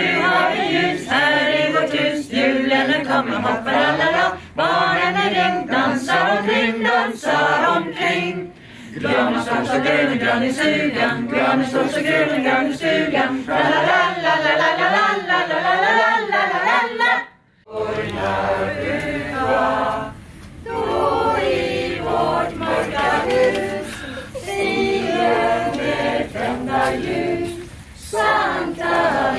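A small group of mostly women's voices singing together unaccompanied. The singing breaks off for a moment about two-thirds of the way through, then carries on.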